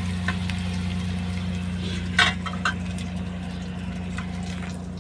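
Garlic, chili and ginger sautéing in an aluminium pot, a faint sizzle over a steady low hum, with a few clatters, the loudest about two seconds in.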